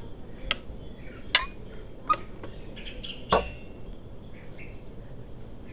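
A spoon knocking sharply against a plastic blender jug four times while thick blended soup is scraped out of it.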